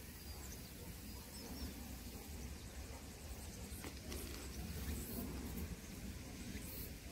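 Faint outdoor ambience: a steady low rumble with a few short, high bird chirps in the first second or so, and a single sharp click about four seconds in.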